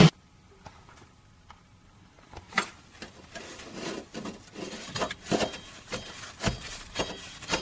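Scattered light knocks, clicks and rubbing from a gloved hand handling parts around a car engine's water pump and pulley. They start a couple of seconds in and come more often after that.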